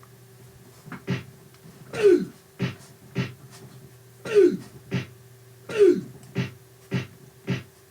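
Vocal sound effects made with the mouth and throat in a rhythm: a short throaty sound falling in pitch, then two short pops, repeated three times, over a steady low hum.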